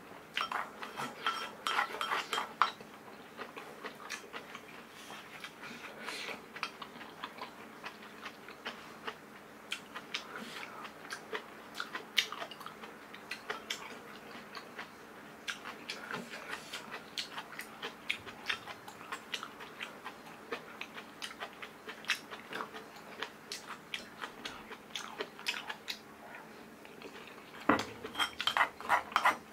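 Close-miked eating sounds: chewing food, with chopsticks and a spoon clicking against a bowl. There is a quick run of clinks about two seconds in and another near the end.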